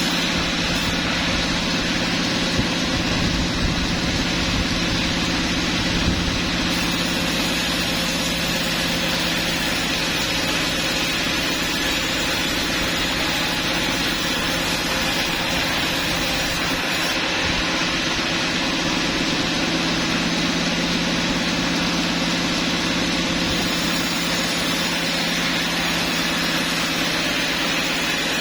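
Sawmill machinery running steadily, a constant motor hum under an even noise that does not change.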